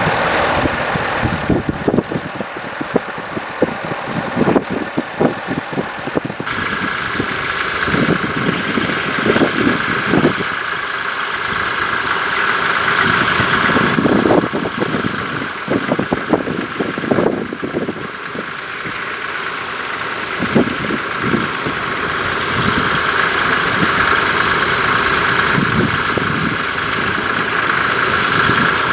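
Ford 4000 four-wheel-drive tractor's engine running under load while pulling a two-furrow plough. A steady whine comes in about six seconds in, over uneven low rumbles.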